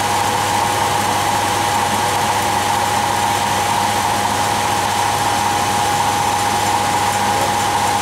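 Vehicle engine idling steadily with the air conditioning switched on and its compressor running, a steady high whine held over the drone.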